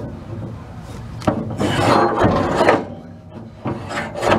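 Steel pintle hitch shaft scraping and grinding as it is twisted and pushed into its sleeve: a tight fit, with rust still left in the bore. The rasping comes in two spells, a long one from about a second in and a shorter one near the end.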